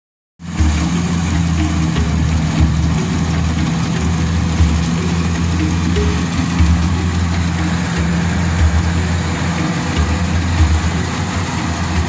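Kubota DC-70 rice combine harvester's diesel engine and threshing machinery running steadily while cutting rice, a continuous low drone with a rushing hiss over it.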